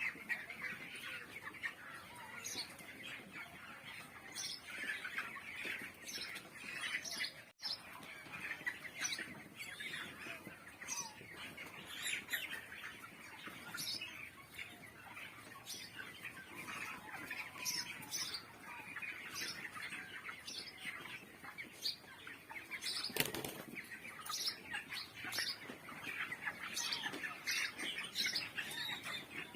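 A flock of 21-day-old chickens peeping and chirping continuously, many short overlapping calls at once, with a brief louder rustle about three quarters of the way through.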